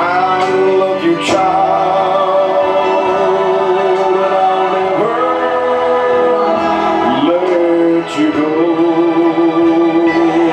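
Gospel worship singing: long held notes that slide up or down into each new note every second or two, ending on a wavering held note.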